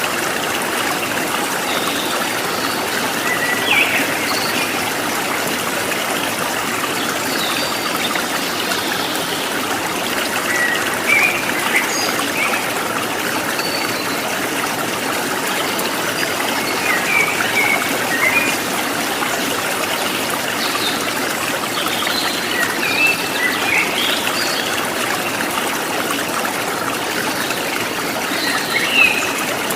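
Stream of running water trickling and babbling steadily, with short, scattered bird chirps over it now and then.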